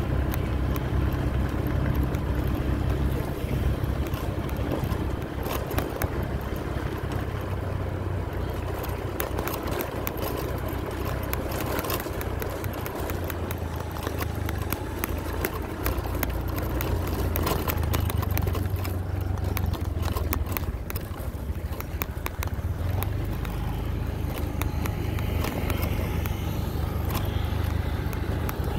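A vehicle travelling along a bumpy unpaved dirt road: a steady low engine drone and road rumble with wind rush, broken by many short knocks and rattles from the bumps.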